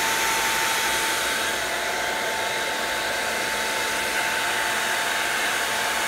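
Old handheld hair dryer blowing at a steady speed, held close over wet watercolour paper to dry the paint: an even rush of air with a thin, steady motor whine.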